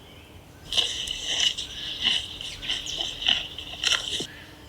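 Horse chewing a carrot close up: loud, repeated crunches about two or three a second, stopping shortly before the end.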